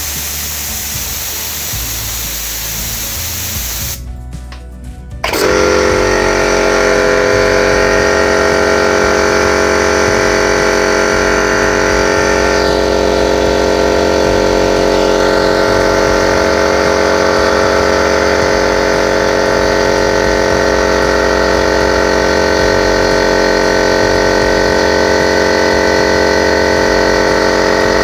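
Air hissing out for about four seconds, then, about five seconds in, the Scheppach air compressor's motor and pump start and run steadily, recharging the tank toward its 8 bar cut-out.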